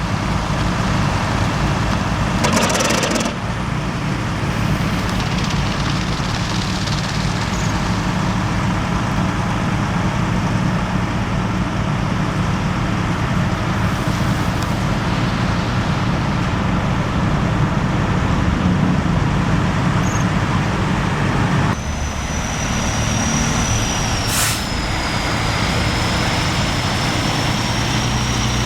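Motor vehicle driving: steady engine hum and road noise, with a short noisy burst about three seconds in. The sound changes abruptly near the end, where a faint high whine comes in.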